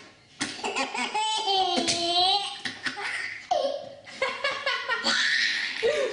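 A baby laughing hard in a long run of belly laughs, set off by someone's sneezes.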